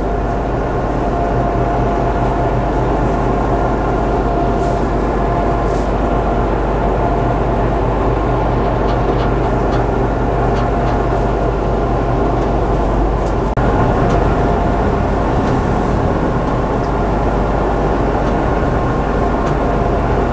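Pegaso truck's diesel engine idling very low while it drives the hydraulics that tilt and slide the rollback flatbed down. It gives a steady drone with a constant whine. The idle is low enough that the engine may stall under the load.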